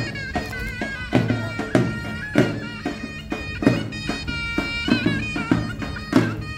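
Background music: a high, ornamented melody of held and bending notes over a steady low drone, with drum hits.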